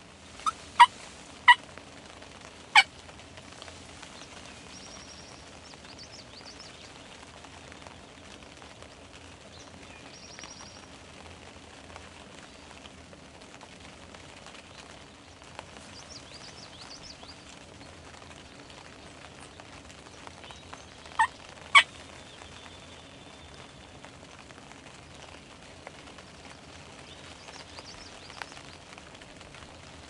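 Wild turkey calling: four short, loud notes in the first three seconds and two more close together about twenty seconds later, with faint songbird notes in between.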